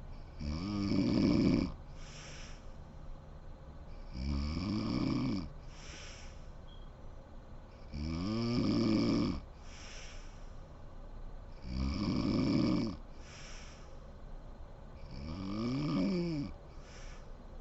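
A woman snoring in her sleep: five snores, about one every four seconds. Each snore is followed by a short breathy exhale.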